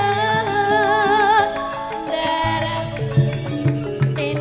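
Javanese gending: a gamelan ensemble plays with a singer's wavering, vibrato-laden vocal line over held metallic tones, and low drum strokes come in during the second half.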